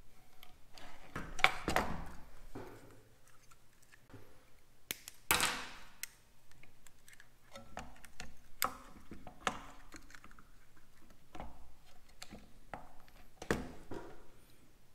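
Handling noise from a MIG spool gun being loaded: plastic clicks and taps of its housing and lid, and knocks as a small spool of welding wire is fitted in. The sharp clicks and knocks are scattered, with quiet gaps between them.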